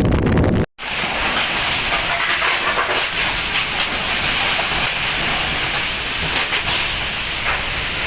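Heavy rain pouring down in a steady, dense hiss. In the first moment, wind rumbles on the microphone before a cut about a second in.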